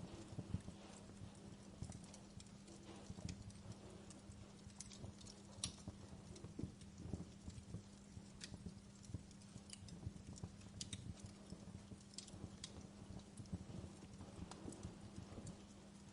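Faint crackling of a wood fire, with irregular pops and snaps over a low steady hum.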